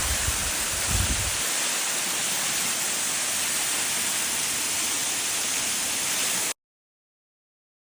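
Waterfall's steady rush of falling water, with a low rumble on the microphone in the first second or so; it cuts off suddenly into silence about six and a half seconds in.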